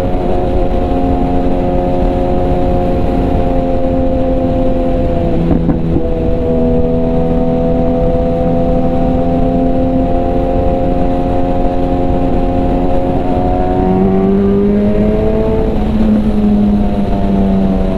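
BMW S1000RR's inline-four engine and exhaust running at steady cruising revs, heard from the rider's seat over a dense wind rumble. The pitch dips briefly about five and a half seconds in, then rises a step about fourteen seconds in and holds there.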